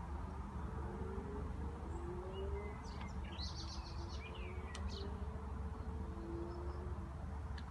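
Steady low rumble under a distant car engine revving up and down. About three seconds in, a small bird chirps a quick run of high notes.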